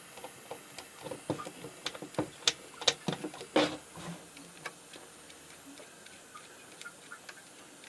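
Irregular small ticks and crackles while a wire joint is being soldered, as more solder is melted onto it with the iron. They come thickest and loudest in the first half, then thin out.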